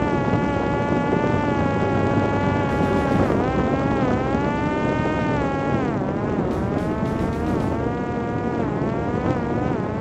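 Parrot Disco's electric motor and rear pusher propeller whining in flight, the pitch sliding up and down as the throttle changes and dipping sharply about six seconds in. Heavy wind rush on the onboard microphone runs underneath.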